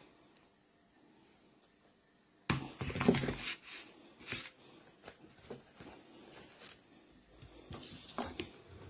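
Handling noises as small objects are moved about by hand: after a quiet start, a burst of knocking and rustling about two and a half seconds in, then scattered light clicks and taps.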